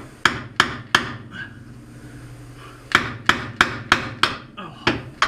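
A 3 lb hammer driving a chisel against an original riveted upper ball joint, trying to knock it out: three sharp metal-on-metal blows, a pause of about two seconds, then a steady run of blows at about three a second.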